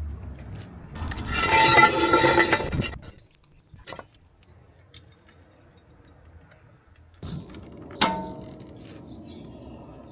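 Tools and metal parts at work on a car's front wheel. A loud rattling burst lasts about two seconds, then a single sharp metallic clank about eight seconds in rings briefly.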